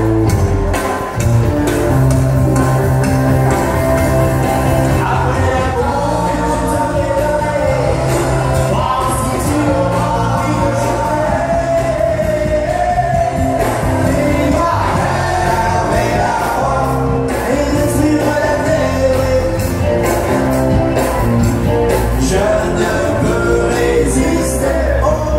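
Country-western song: a singer over a band with bass and a steady drum beat, played loud through a PA system.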